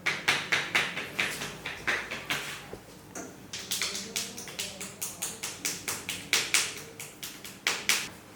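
A massage practitioner's hands striking the body in percussive tapping strokes: runs of sharp taps, about four a second, with a short pause about three seconds in.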